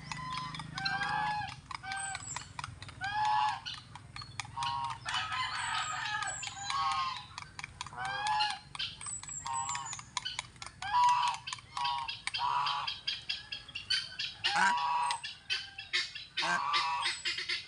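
Several domestic fowl calling over and over: short, honking, nasal calls come every half second or so, overlapping at times, with thin high chirps and small clicks among them.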